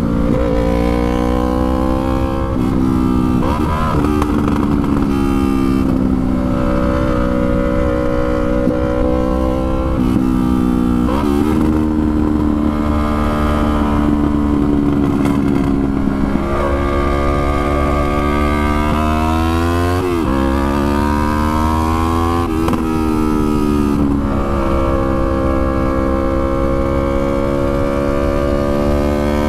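Yamaha R3's parallel-twin engine riding under way, its pitch climbing and then dropping sharply several times as it shifts gears.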